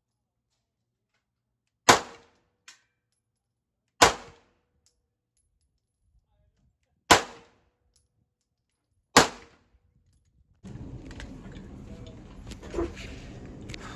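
Four single 9mm pistol shots fired one at a time, a couple of seconds apart, each a sharp crack with a short ring after it. Near the end, steady background noise comes in, with one dull thud in it.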